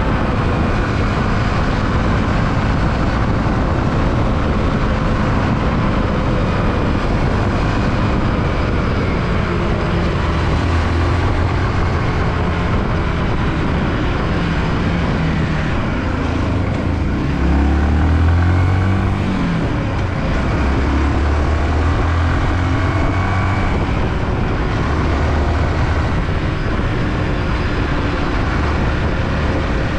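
Yamaha WR155R's single-cylinder engine running on the move under a steady rush of wind and road noise. The engine note slides up and down a little past halfway through.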